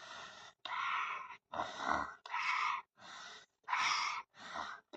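A child breathing hard in and out while taking a steam inhalation for a cold: about seven noisy, breathy puffs with short gaps between them.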